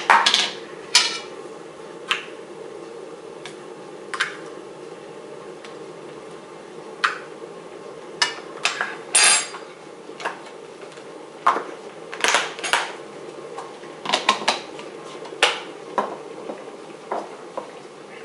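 Hard plastic parts of a personal drip coffee filter clicking and clattering against a glass mason jar and the countertop as they are handled and fitted together: irregular knocks and taps over a steady low hum.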